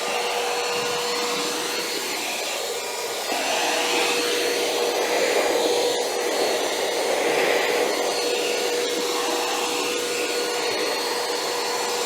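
XREXS H109 cordless handheld vacuum running: a steady motor whine over the rush of air through the nozzle. The airflow swells and eases, getting louder a few seconds in, as the nozzle is worked into corners.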